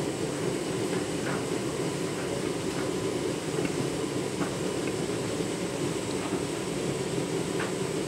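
Candy front-loading washing machine in its wash tumble: the drum turning with a steady churning of water and very thick suds, with a few faint ticks along the way.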